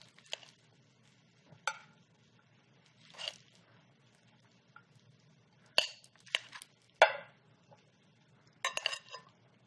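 Metal tongs tossing a salad of arugula, torn pita and tomatoes in a glass bowl and lifting it onto a plate: a few irregular sharp clinks of metal on glass between soft rustles of leaves.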